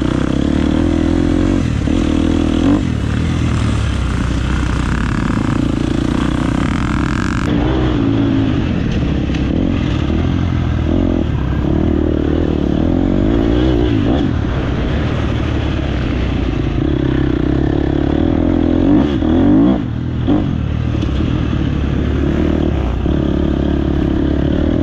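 Dirt bike engine running hard on a motocross track, its pitch repeatedly rising and falling as the throttle is opened and closed.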